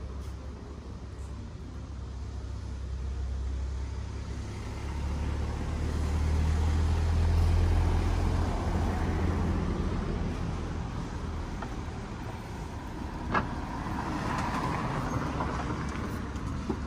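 Street traffic: a motor vehicle's low engine rumble swells as it passes and then fades, with a single sharp click about 13 seconds in.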